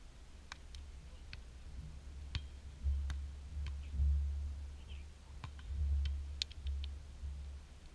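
Wind rumbling in gusts on the microphone, with scattered sharp taps and clicks as a beach volleyball rally is played.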